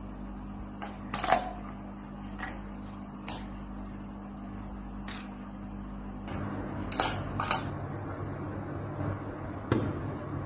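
A pufferfish crunching small shells in an aquarium: about seven sharp, irregular cracks over the steady hum of the tank's pump, which turns deeper about six seconds in.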